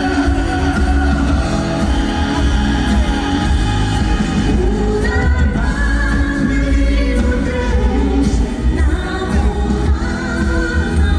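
Live concert performance: a male singer's voice with long held notes over band accompaniment and heavy bass, heard through an audience member's recording.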